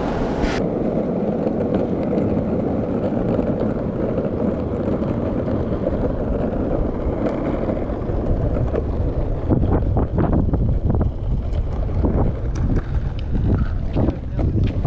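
Skateboard wheels rolling on concrete with wind buffeting the microphone: a steady low rumble, joined from about nine seconds in by a run of sharp clacks.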